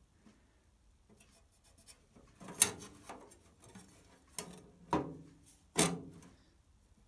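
Thin steel patch plate handled against a steel chassis while a marker pen draws on it: four short clicks and scrapes of sheet metal, the sharpest about two and a half seconds in.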